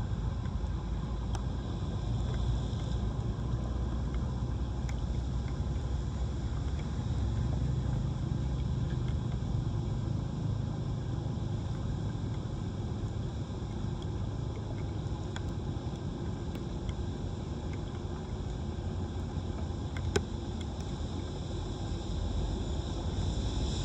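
Floodwater running steadily into a street storm drain, a continuous low rumbling rush, with one sharp click about twenty seconds in.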